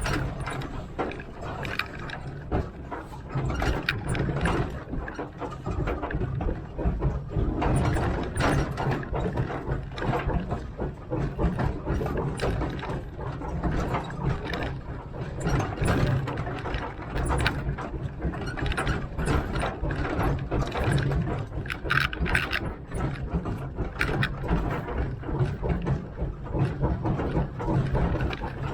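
A 1927 Vulcan 0-4-0T narrow-gauge steam locomotive working slowly up a grade under throttle: a steady run of exhaust chuffs and mechanical clanking over a low rumble. About three-quarters of the way through there is a brief higher-pitched sound.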